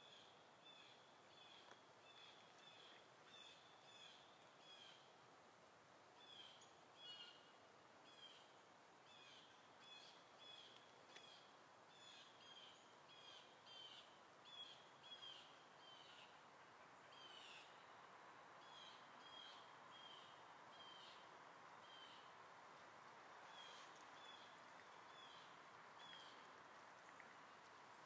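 Faint bird chirping: short, high notes repeated about two or three times a second, over a quiet hiss of background noise.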